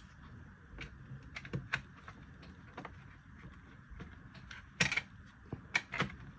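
Scattered light clicks and taps of a flexible TPU 3D-printed insert and a metal Altoids tin being handled, with a louder cluster of clicks near the end as the insert is worked toward the tin.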